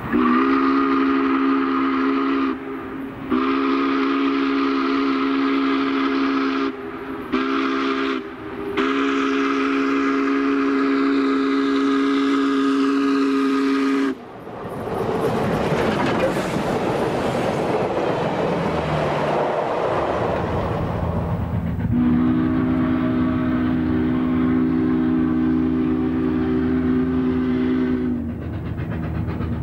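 Steam locomotive Spokane, Portland & Seattle 4-8-4 No. 700 blowing its chime whistle in four blasts, long, long, short, long: the grade-crossing signal. Then a loud rushing noise as the engine passes close. Then the whistle sounds one more long blast, and another begins near the end.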